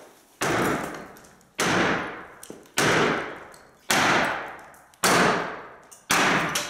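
Sledgehammer striking the base of a wooden wall post six times, about one heavy blow a second, each blow echoing and dying away before the next, knocking the post loose to take it out.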